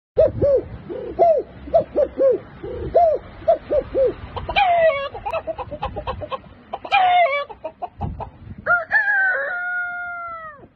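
A man imitating a chicken with his voice. He gives a quick run of short clucks, then a few longer, higher calls, and ends with a long rooster crow that is held and then falls away just before the end.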